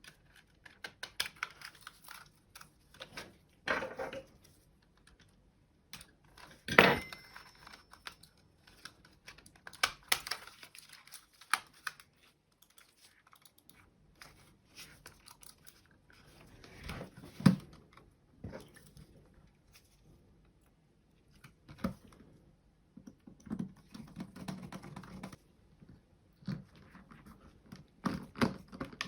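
Small plastic parts of a computer mouse being handled on a work surface during reassembly: irregular clicks, taps and short scraping rustles, with a couple of louder sharp clicks.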